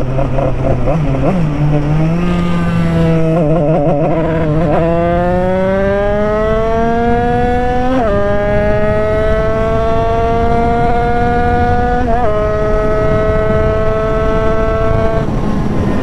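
Yamaha DT two-stroke dirt bike with a newly built engine accelerating hard through the gears: the engine note climbs, dips with a gear change about eight seconds in and again about twelve seconds in, holds steady, then falls as the throttle closes near the end.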